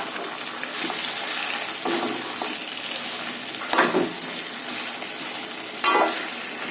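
Chicken pieces sizzling in oil in a pan as they are fried down with spice paste, the oil already separated out. A spatula stirs and scrapes against the pan in four sharper strokes about every two seconds.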